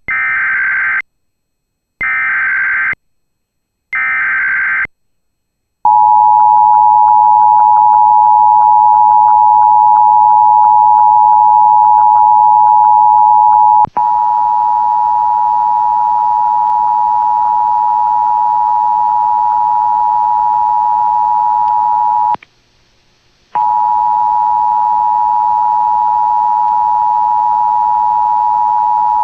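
Emergency Alert System tones. First come three roughly one-second bursts of the SAME digital header, a raspy data chirp, about a second apart. Then the two-tone EAS attention signal (853 and 960 Hz) holds steady, cutting out for about a second near the end before resuming.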